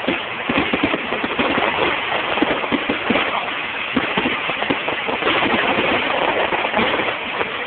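Fireworks going off in rapid succession: a dense, continuous crackle of many overlapping pops and bangs.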